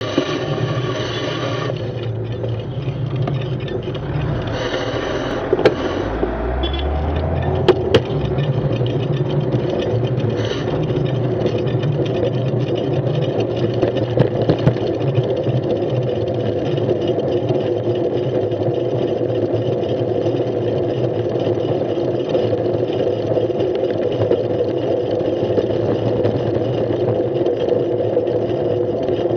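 City street traffic heard from a moving bicycle: motor vehicle engines running close by, one revving up about six seconds in, with a few sharp clatters around eight seconds in. For the rest there is a steady rumble of traffic and road noise.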